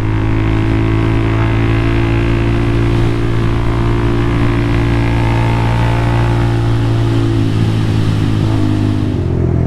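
Honda motorcycle engine running steadily under way, with rushing noise over it. About seven or eight seconds in the engine note drops and the rushing fades as the bike slows.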